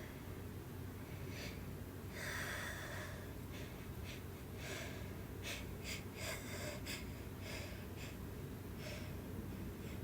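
A person sniffling and taking short, sharp breaths through the nose: about a dozen quick airy sniffs, with one longer breath in about two seconds in, over a steady low hum.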